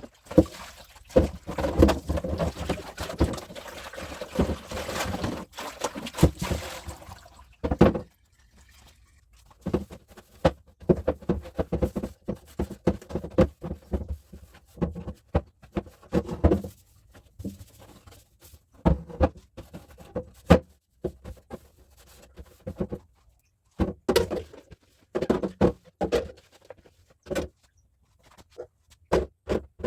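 Irregular knocks, taps and rustling of containers and packages being handled, busy at first and then sparser, as a refrigerator is cleaned and groceries are put away.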